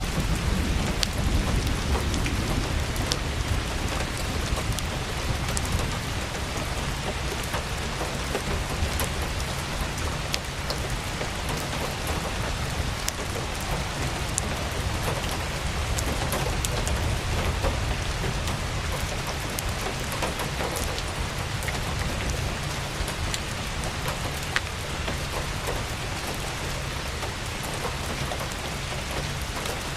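Steady heavy rain, a dense hiss with scattered sharp drop ticks over a low rumble that is strongest in the first few seconds.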